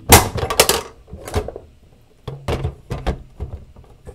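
Hard plastic stackable miniature carrying cases being handled: a quick cluster of clicks and knocks in the first second, a single knock, a short pause, then a few more knocks as the cases are set against each other.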